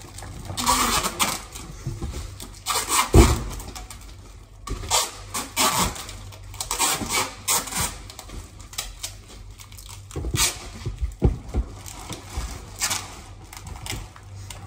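Goods being handled while a balikbayan box is packed: irregular rustling of packaging with light clatter and knocks, and a louder thump about three seconds in.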